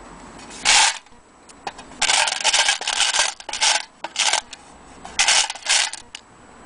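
Loose rusty metal parts clinking and rattling against each other and a metal tin as a hand stirs through them, in four bursts, the longest nearly two seconds.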